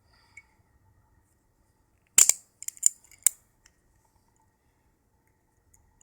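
Butterfly knife (balisong) being handled: a quick, loud cluster of sharp metallic clicks about two seconds in, then a few lighter clicks over the next second.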